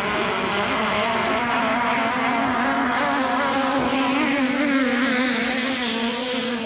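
Racing boat's engine running hard as the boat speeds along the water, a steady engine note whose pitch wavers slightly.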